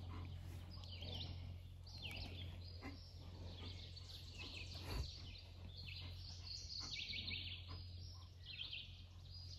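Birds chirping and singing faintly in many short calls, over a steady low rumble, with a single sharp knock about five seconds in.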